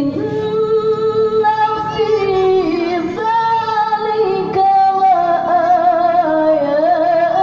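A woman's voice reciting the Quran in the melodic tilawah style, holding long notes and winding them through ornamented, wavering turns that step down in pitch.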